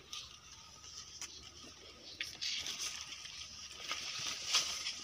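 Footsteps and rustling through dry leaf litter and undergrowth, with irregular crackles and snaps, louder in patches around the middle and near the end.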